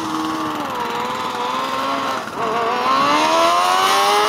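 Formula Student race car's engine pulling away under acceleration. The note dips briefly just over two seconds in, then climbs in pitch and gets louder as the car speeds up.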